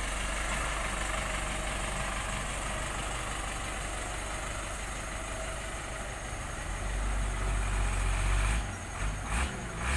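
A New Holland farm tractor's diesel engine idling steadily close by, its low rumble swelling louder for a second or two near the end.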